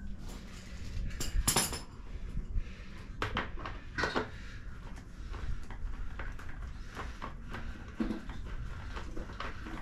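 Irregular metallic clinks and knocks of hand tools and small parts during hand work on a dirt bike's frame and tank, the loudest cluster about a second and a half in.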